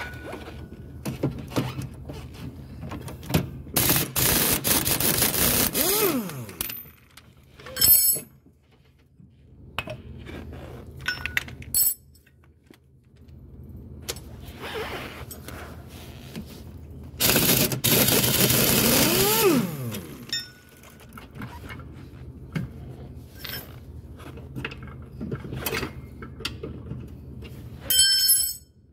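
Air impact wrench run in two long bursts of about two seconds each, each ending in a falling whine as the motor spins down after the trigger is let go. There are a few short blips of it and scattered clinks of tools between.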